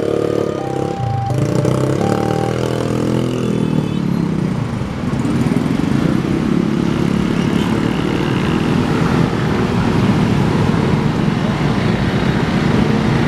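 Level-crossing warning alarm sounding in repeated stepped electronic tones, breaking off briefly about a second in and stopping about four seconds in as the crossing clears. Then the dense engine noise of many motorcycles and cars pulling away over the crossing.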